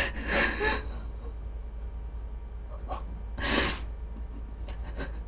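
A man crying: short, noisy, ragged breaths, two at the start and a louder sharp intake about three and a half seconds in, with a few faint clicks near the end.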